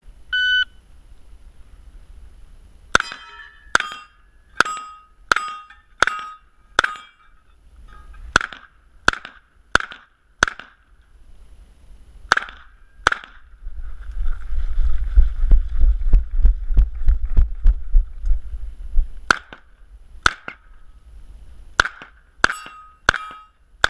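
A shot timer beeps once, then an MP5 pistol-caliber carbine fires single shots in quick strings, about eighteen in all, roughly 0.7 s apart. Each shot is followed by the ringing of a struck steel target. About halfway through there are several seconds of low rumbling noise without shots, and then the firing resumes.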